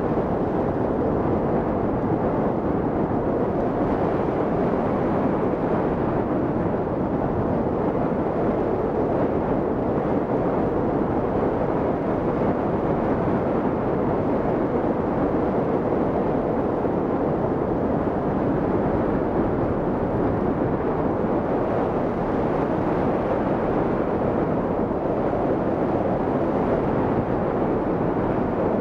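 Steady rush of airflow over the microphone of a camera mounted on a hang glider in flight, an even, unbroken wind noise.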